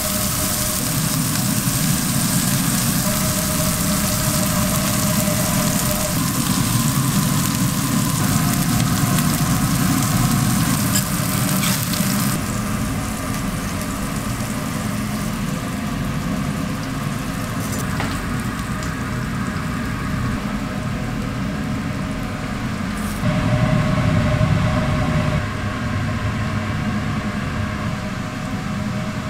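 Beef patties sizzling on a flat-top griddle, a dense steady hiss, over a steady low mechanical drone. About twelve seconds in the sizzle drops away and only the drone remains, with a few faint clicks.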